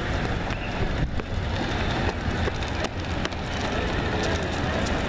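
Wind buffeting the microphone: a steady, rumbling hiss with a few faint clicks.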